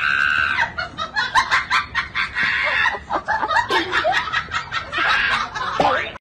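People laughing: a rapid, choppy run of cackling laughter that keeps going through the stretch.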